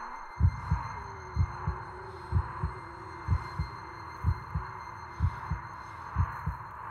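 Heartbeat sound effect: slow, even lub-dub double thumps about once a second, over a steady hiss and a faint sustained drone.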